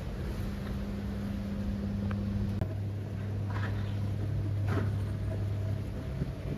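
A passenger ferry's engines running with a steady low drone as it comes alongside the pier; the engine note shifts about two and a half seconds in.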